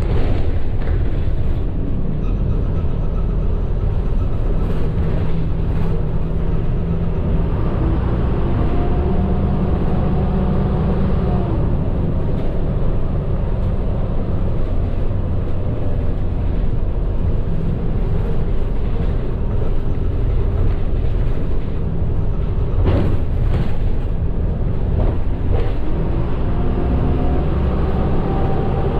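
Medium bus driving, heard from inside the cabin: a steady low engine and road rumble with a faint whine above it. Two brief knocks or rattles come near the end.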